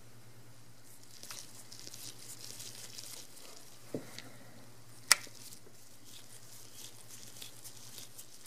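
Faint scraping and rustling as a small screwdriver unscrews the tiny Torx screws holding the image sensor of a Canon EOS 6D, with the camera body being handled. There is a soft click about four seconds in and a sharp click about five seconds in, over a faint steady low hum.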